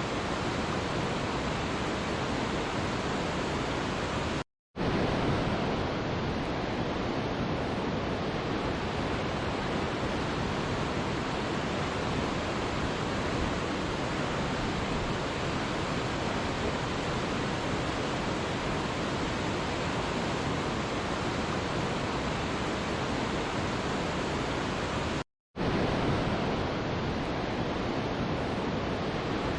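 Waterfall rushing in a steady, even roar of falling water, cutting out to silence for a split second twice.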